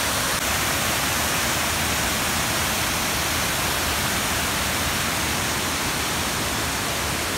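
Multi-tiered waterfall cascading over rock ledges into a pool: a steady rushing of water.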